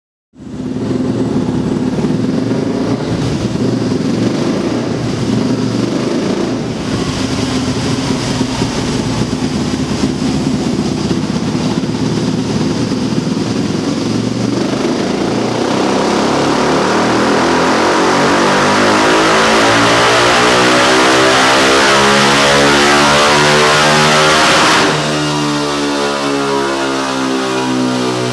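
Yamaha XTZ 250 Lander's single-cylinder four-stroke engine in a dynamometer run: it runs at steady revs, then from about halfway through is pulled hard with its pitch rising steadily and getting louder, until the throttle is shut near the end and the revs fall away.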